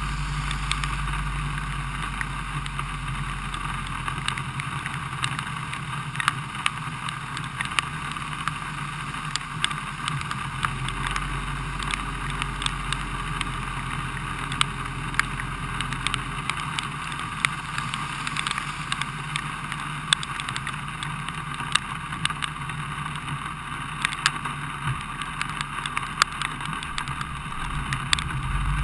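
Rain tapping on a stopped car's windscreen and roof over the low, steady hum of its idling engine, with many sharp drop ticks.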